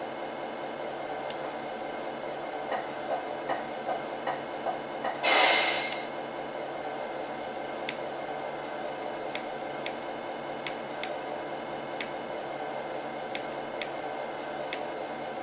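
Simulated truck engine idling steadily from a Tamiya MFC-03 multi-function sound unit's small speaker. About five seconds in there is a short burst of air hiss, and sharp clicks come now and then.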